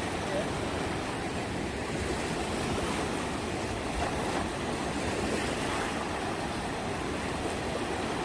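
Sea surf washing steadily onto the beach.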